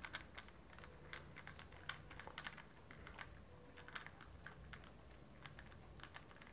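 Faint, irregular small clicks and taps of hard plastic parts of a bike mobile-phone holder's clamp being handled and turned in the hands.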